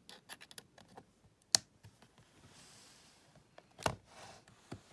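Small clicks and taps of a USB-C tester board being pushed into a laptop's USB-C port, with one sharp click about a second and a half in and a duller knock a little before the end.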